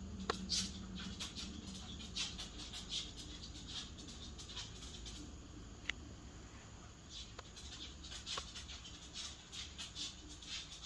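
Quick, repeated sniffing through the nose: short airy sniffs in irregular clusters, with a few small clicks between them.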